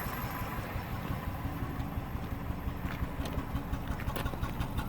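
Toyota Corolla 1.8-litre four-cylinder engine idling roughly, with an uneven pulsing that becomes a clearer rhythmic beat in the second half. The roughness is a misfire on cylinder 3, which the mechanic puts down to a fouled spark plug.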